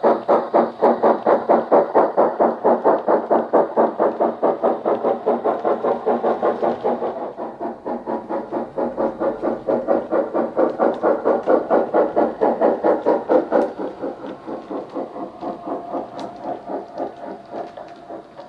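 DCC sound decoder in a Hornby Britannia model locomotive playing a Wheeltappers steam sound file through a speaker in the tender. It gives the steady exhaust chuffs of a BR Britannia Pacific working, about four beats a second, and grows quieter about three-quarters of the way through.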